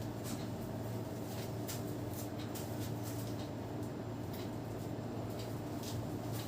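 Hands massaging a head and rubbing through the hair, making irregular scratchy rustles and small crackling ticks over a steady low hum.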